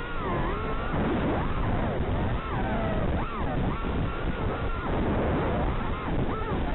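Racing quadcopter motors whining, their pitch sweeping up and down again and again as the throttle changes, over a steady rushing noise.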